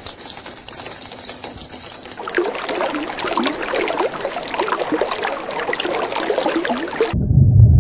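Water running in a thin stream. From about two seconds in, water pours and splashes into water. About a second before the end, a loud low rumble takes over.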